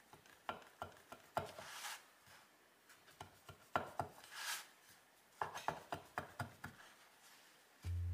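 Kitchen knife cutting through a slice of multigrain bread on a wooden cutting board: clusters of small sharp knocks as the blade presses down onto the board, with two short rasping scrapes as it saws through the bread. Piano music comes in right at the end.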